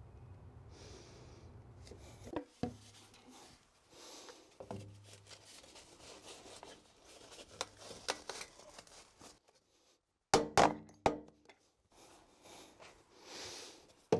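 PVC drain pipe and fittings being handled and fitted together: scattered hard plastic knocks and rubbing, loudest as two sharp clunks about ten seconds in.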